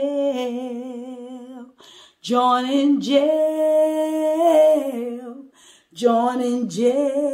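A woman singing a cappella in three drawn-out phrases, holding long notes with vibrato.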